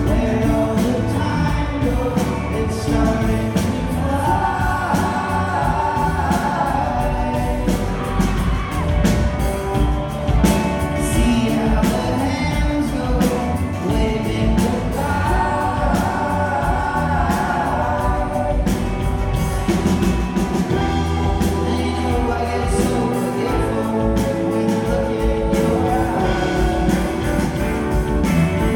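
Live rock band playing, with lead and backing vocals singing over guitars, bass and drums, heard through a concert hall's sound system.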